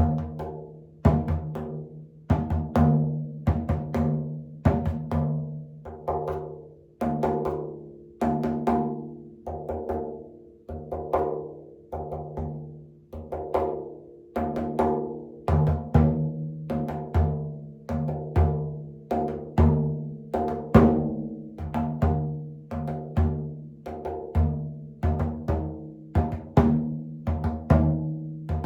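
Frame drum struck in a steady, unhurried beat, about one to two strokes a second and sometimes in pairs. Each stroke rings on with a low resonant hum.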